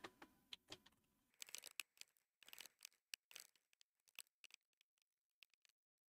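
Faint, irregular clicking of keys being typed on a computer keyboard, almost at the level of silence.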